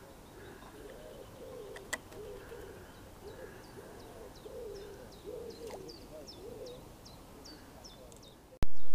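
Pigeons cooing in low repeated phrases, with a small bird's quick high chirps repeating over them. Near the end a sudden, much louder sound cuts in.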